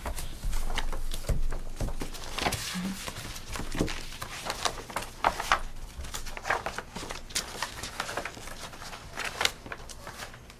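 Sheets of paper being handled and leafed through at a table: irregular rustling with scattered small clicks and knocks.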